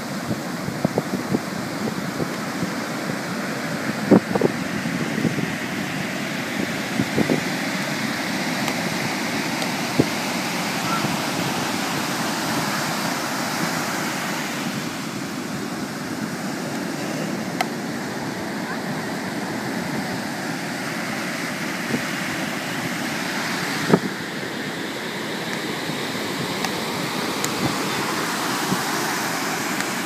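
Ocean surf from 3–4 ft waves breaking and washing up the sand: a steady rush of whitewater, with a few brief knocks, the sharpest about four seconds in.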